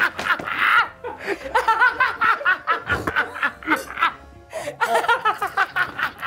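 Several people laughing hard together.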